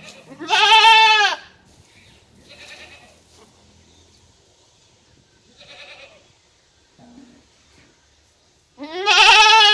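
Young goat kid bleating: two loud, quavering bleats, one about a second in and one near the end, with a few fainter bleats between them.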